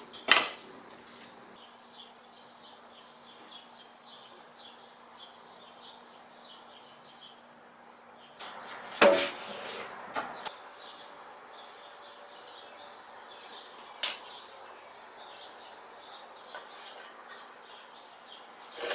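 A few knocks and clicks from tools being handled on a workbench, the loudest about halfway through and a sharp click a little later, over faint birds chirping in the background.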